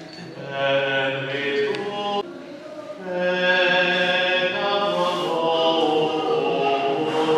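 Slow church singing in long held notes. It breaks off suddenly about two seconds in and starts again about a second later.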